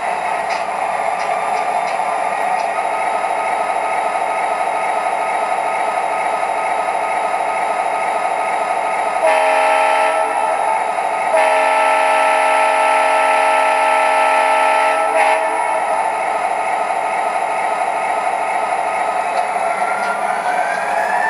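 Onboard sound system of an MTH O-gauge CSX SD40-2 model diesel (Proto-Sound 2.0) playing a diesel engine idling steadily. The horn sounds twice, about two seconds and then about four seconds. Near the end the engine sound rises as the locomotive pulls away.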